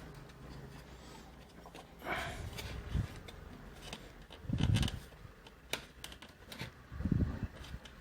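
Handling noise from the juicer's motor and casing being fitted back together: scattered clicks, knocks and light rubbing, with heavier thumps about four and a half and seven seconds in.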